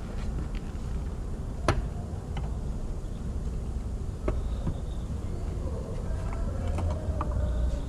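A few sharp clicks and knocks, about four, over a steady low hum.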